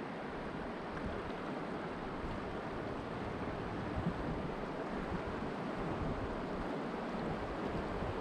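Steady rush of a shallow river running over rocks in a riffle, with low wind rumble on the microphone.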